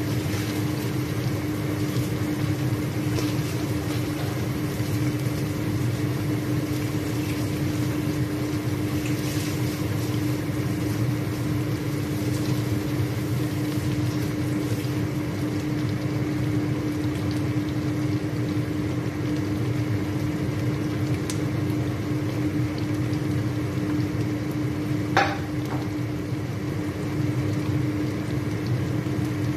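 Chicken pieces sizzling in hot oil in a non-stick pan, with fine crackling over a steady hum. A single sharp click near the end.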